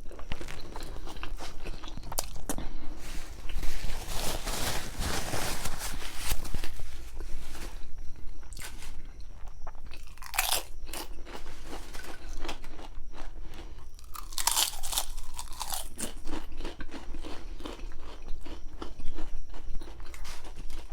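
Close-miked chewing and crunching of mouthfuls of a baked grinder sandwich, with wet chewing between the crunchier bites.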